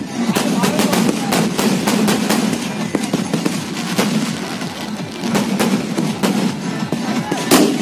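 Fireworks going off in rapid, irregular succession, a dense string of bangs and crackles with one louder bang near the end.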